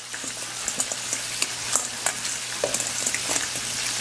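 A spoon stirring sauce-coated fried chicken wings in a stainless steel bowl, with frequent small clicks and scrapes against the metal. Behind it runs a steady crackling sizzle from a batch of wings deep-frying in hot oil.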